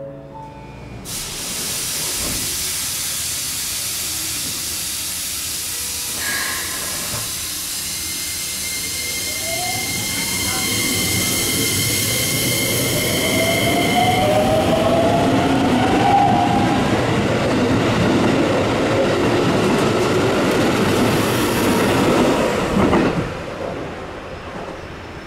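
Keikyu electric train running at the station: a sustained rush and rumble of wheels on rail, with the traction motors' whine rising in pitch through the middle. It starts abruptly about a second in and cuts off sharply near the end.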